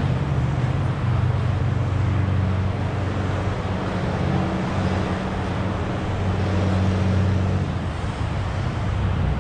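Large diesel engine idling steadily with a low hum, the concrete boom pump truck's engine kept running.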